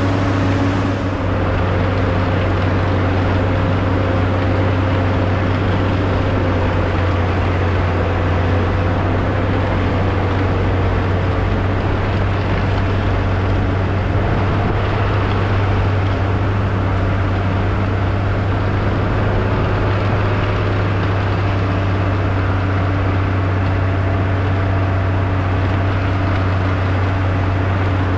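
1998 Bombardier (Prinoth) BR-160 snowcat's engine running steadily as the machine drives and pushes snow with its front blade. A deep steady drone with a thin whine that drops slightly in pitch about ten seconds in.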